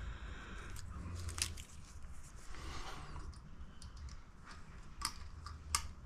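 Feeler gauge blades clicking as they are fanned through and handled: a few sharp clicks, about one and a half seconds in and twice near the end, over a faint low hum.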